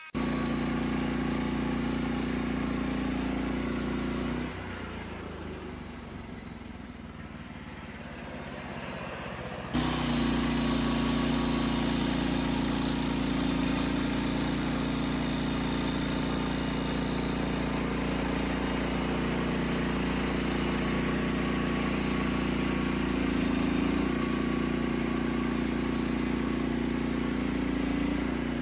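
Gas engine of a manual band sawmill running steadily, as when cutting lumber. It drops to a quieter sound from about four seconds in, then comes back abruptly at full level about ten seconds in.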